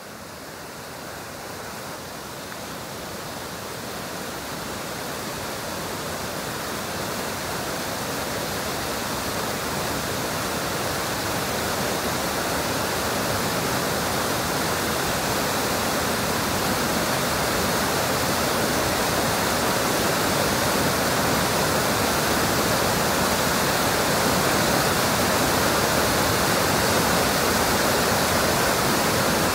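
A steady rushing noise with no tune or beat, like running water, fading in slowly and growing louder over the first twenty seconds before levelling off.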